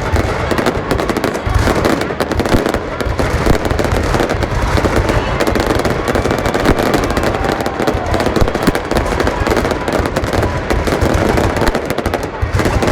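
A fireworks display: many bursts and crackles in quick, continuous succession, with no pause.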